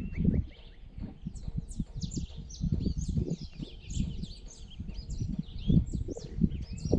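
Dawn chorus: many small birds chirping and twittering in quick, overlapping short notes, with a low uneven rumble underneath.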